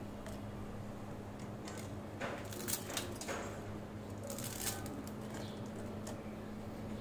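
Dry instant noodle blocks being crumbled by hand into a pot of water, giving a few soft, scattered crackling crunches over a faint steady low hum.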